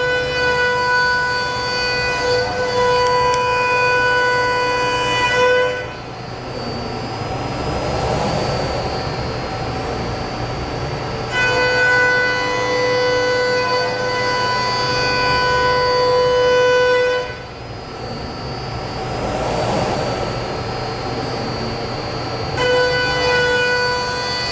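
CNC router spindle whining at a high, steady pitch while its cutter makes a roughing cut through a block of Renshape tooling board. The whine grows strong and fades back in stretches of about five to six seconds, twice.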